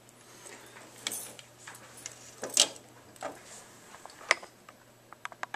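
Light clicks and taps of the small plastic rotor head and blades being handled and set down on a wooden desk: a few scattered knocks, then a quick run of small ticks near the end.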